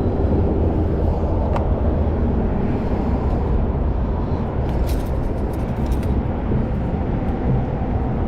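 Steady rushing of water flowing through a spillway, with a few faint clicks about halfway through.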